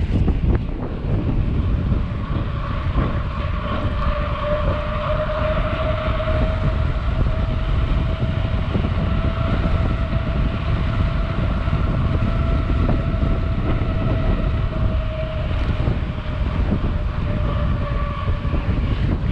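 Mountain bike rolling fast on asphalt at about 44 km/h: heavy wind rush over the microphone with a deep rumble, and a steady whine from the spinning wheels.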